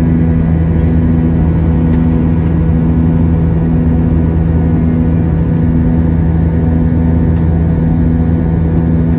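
Jet airliner engines heard from inside the cabin near the wing: a loud, steady low drone with a hum that throbs about once a second.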